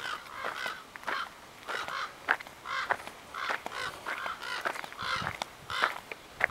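Crows cawing repeatedly, short harsh caws about one or two a second, often in pairs, with footsteps on a wood-chip path.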